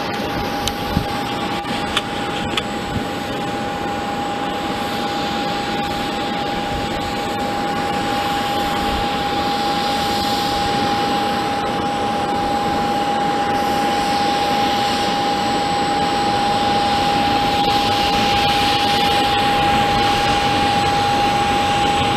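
Business jet's turbofan engines running on the runway: a steady high whine over a broad rushing noise that grows louder over the first dozen seconds and then holds.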